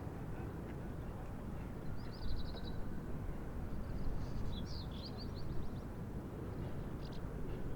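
Park ambience: small birds chirping in short, rapid trilled phrases, about three times, over a steady low background rumble.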